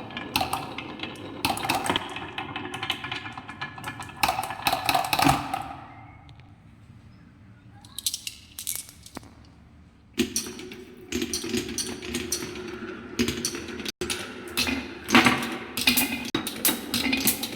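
Close-up eating sounds: quick crisp clicks and crackles of chewing and crunching. About six seconds in they fade to a quiet stretch of several seconds, then start again.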